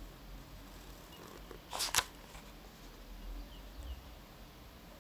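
Faint handwriting sounds: a short scratchy stroke about two seconds in, and a few faint squeaks of the writing tip a little later.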